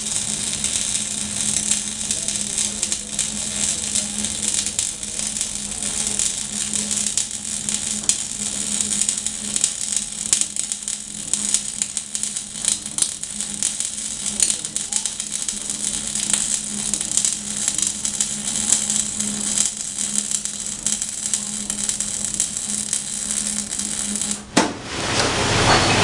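Electric arc welding: a steady crackling sizzle with a low hum under it, which cuts off abruptly about a second and a half before the end.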